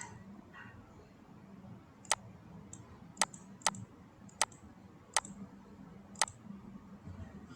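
Six sharp computer clicks at irregular intervals, about a second apart, over a faint steady hum.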